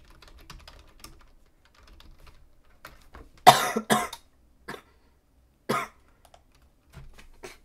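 A person coughs hard three times, two coughs in quick succession about three and a half seconds in and one more near six seconds. Light computer-keyboard typing and clicking sounds before and after the coughs.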